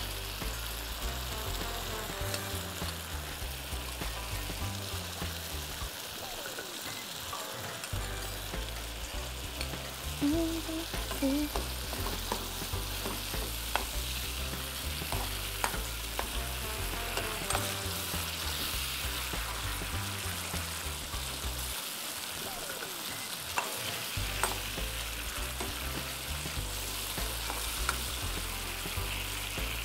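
Watery tomato, pepper and onion sauce sizzling steadily in a non-stick frying pan over a gas flame. A metal spoon stirs it and clicks against the pan now and then.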